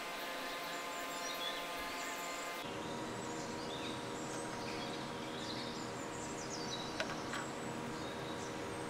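Birds chirping over a steady background hum, with one sharp click about seven seconds in.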